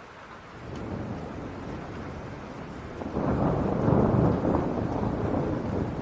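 Thunder rumbling over steady rain. The low rumble builds about half a second in, then swells much louder about three seconds in before easing slightly.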